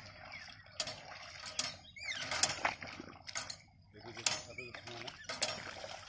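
Hand-operated, chain-driven two-row manual paddy transplanter being worked by its lever, giving metallic clacks of its mechanism about once a second.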